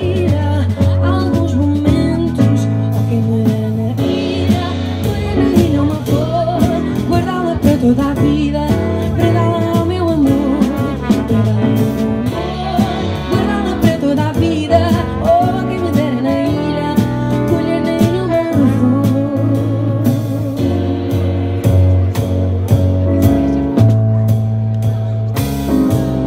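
Live Portuguese folk band playing, a wavering melody line over a steady bass and beat.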